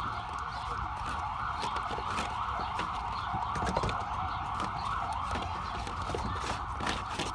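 A steady background hum runs throughout, with scattered light clicks and knocks of the plastic air filter housing as a new engine air filter is slid into place.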